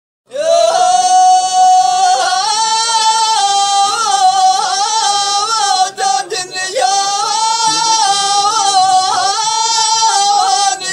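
Tamawayt, the unaccompanied Amazigh chant, sung by a man in a high, held voice with ornaments that waver up and down. The phrase starts abruptly and breaks briefly about six seconds in before carrying on.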